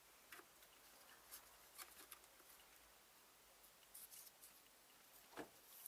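Near silence with a few faint, scattered clicks and rustles and one slightly louder knock about five and a half seconds in.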